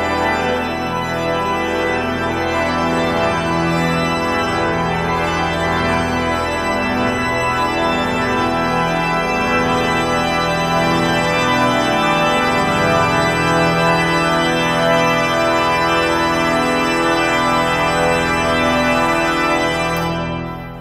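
Pipe organ playing loud, dense sustained chords across many registers. Just before the end the upper tones cut off and the sound drops to a quieter, lower chord.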